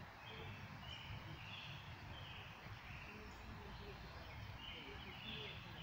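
Faint outdoor ambience: a steady low rumble, like wind on the phone's microphone, with short high chirps repeating irregularly, about seven of them.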